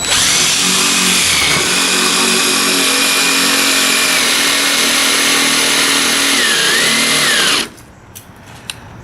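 Cordless power drill running steadily under load, drilling through double-layered sheet metal on the bus body. Its whine dips and recovers near the end, and it stops abruptly after about seven and a half seconds.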